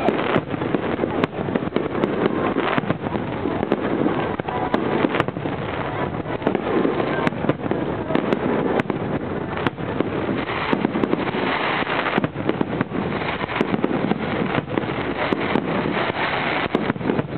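Aerial firework shells bursting in a continuous barrage: many sharp bangs close together over a steady crackle.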